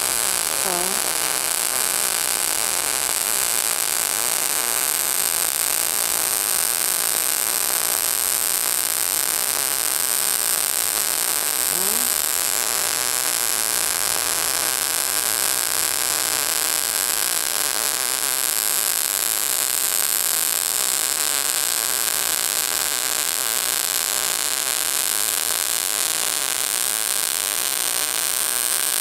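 MIG (gas metal arc) welding arc with .035 wire from an Everlast 221 set at 19 volts and 185 wire feed speed, burning continuously through a weave fill-and-cap pass on pipe. It is a steady, even hiss, strongest in the highs, with no breaks. The welder later judges the wire feed speed a little high for this pass, leaving the cap crowned slightly tall.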